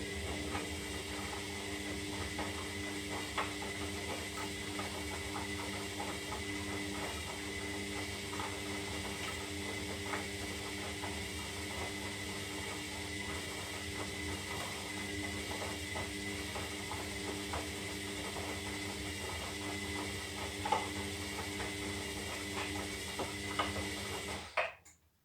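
Zanussi Lindo 300 washing machine running mid-cycle: a steady mechanical hum with faint scattered clicks, cutting off suddenly near the end.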